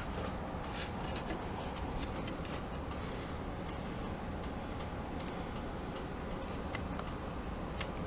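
Scattered light clicks and rubbing from the fog machine's wired remote and power cord being handled, over a steady low hiss.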